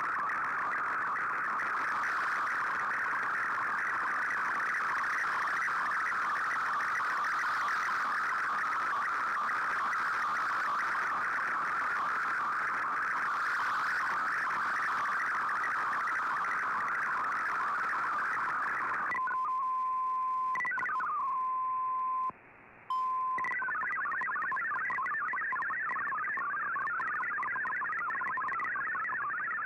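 Shortwave MFSK digital-mode signal from an Icom IC-R8600 receiver's audio. It first runs as a dense, hissing warble, typical of an Fldigi MFSK picture being sent. About 19 seconds in it gives way to a steady single tone that briefly cuts out, then the quick stepping tones of MFSK text data.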